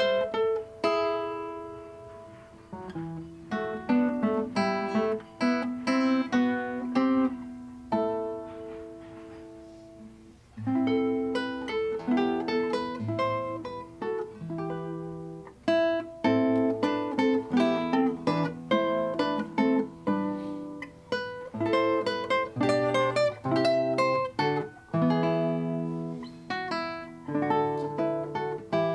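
Solo classical guitar played fingerstyle, plucked nylon strings with notes that ring on. Between about two and ten seconds in a few held notes ring and fade slowly, then the playing moves on in steadier, denser runs.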